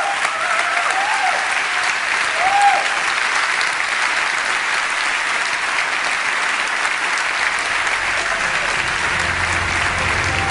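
Large auditorium audience applauding steadily, with a few whoops in the first few seconds. Low music begins to come in under the clapping near the end.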